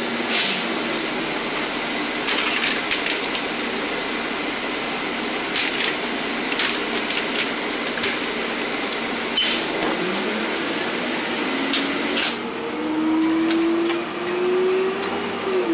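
Interior of a moving 1999 first-generation Nova Bus LFS: a steady rush from the rooftop air-conditioning fans running on full, with scattered rattles and clicks from the bus body. From about ten seconds in, the engine's drone rises steadily in pitch as the bus accelerates, then drops away near the end.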